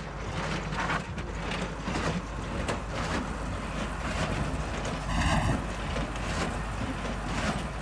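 Heavy wood-processing machine running, steady mechanical noise with irregular knocks and clatter, and a brief high-pitched squeal about five seconds in.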